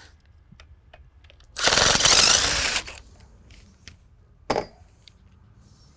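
Impact wrench rattling for about a second as it spins off one of the nuts around the front of an expandable hub, followed a couple of seconds later by a brief second burst.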